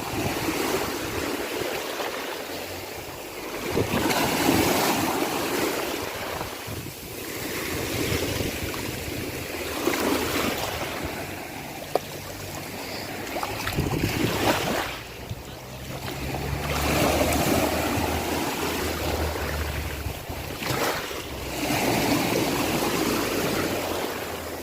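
Sea waves washing ashore, the surf swelling and fading away every five or six seconds.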